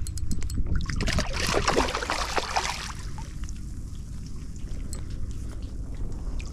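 Water splashing and sloshing as a hooked snook thrashes at the surface while being landed, busiest for about the first three seconds, then settling into lighter trickling and dripping.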